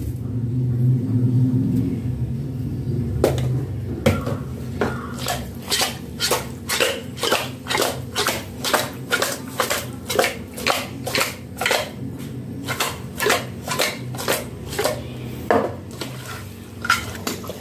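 Raw country chicken being tossed and mixed by hand in an aluminium pot with spice powders, the pot knocking and rattling in a regular rhythm of about two strikes a second. A low hum runs in the first few seconds before the knocking starts.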